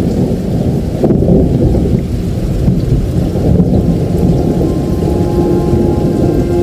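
Steady rain with a continuous low rumble of thunder. Soft music with held notes comes in about five seconds in.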